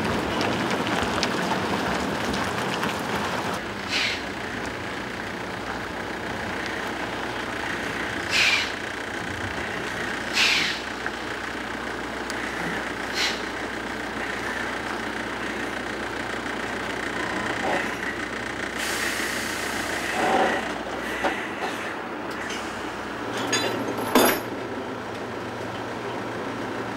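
Heavy-haul truck with a long multi-axle trailer moving slowly: a steady rumble of engine and rolling tyres, broken several times by short sharp sounds.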